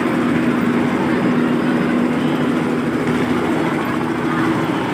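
Helicopter running steadily, a constant engine drone with a steady hum.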